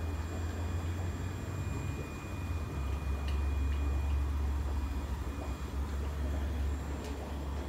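Low steady rumble of aquarium equipment, with a faint high whine above it and a couple of faint ticks.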